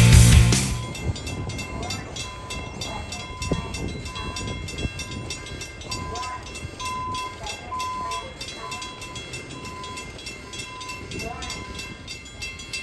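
Music ends abruptly, then a Long Island Rail Road train is heard at the station: a steady whine of several high tones, with a tone near 1 kHz coming and going, and fast regular faint ticking.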